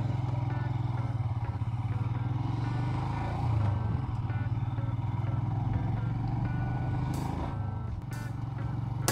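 Royal Enfield motorcycle engine running steadily at a cruising pace on a gravel road. Faint guitar music comes in underneath it.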